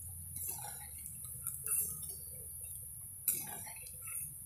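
Steel wire-mesh skimmer clinking and scraping against a steel wok as fried pakoras are lifted out of the oil, a few separate knocks with the loudest about three seconds in, over a steady hiss of oil frying.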